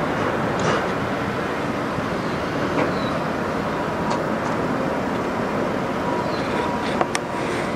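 Steady vehicle rumble with a few faint clicks near the end.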